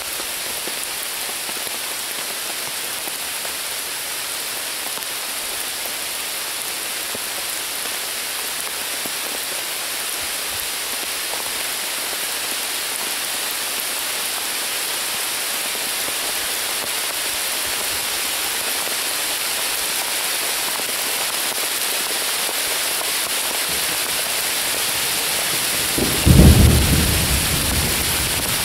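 Steady rain falling on a leafy woodland canopy, growing slightly heavier. Near the end a sudden loud clap of thunder breaks in and rumbles away over a couple of seconds.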